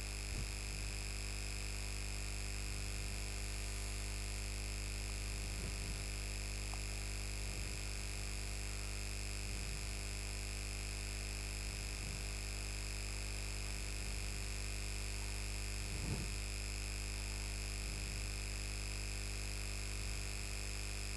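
Steady electrical hum and whine from the recording chain, many fixed tones from a low hum up to a high whine, with a few faint marker strokes on a whiteboard.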